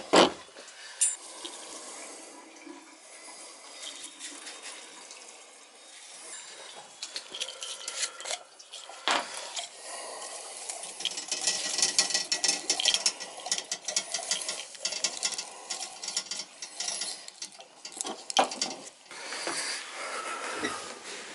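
Hand-work clatter: tools and small items knocked and handled on a boiler's metal top, with a few sharp knocks, the loudest at the very start, and a long stretch of rapid clicking and rustling in the second half.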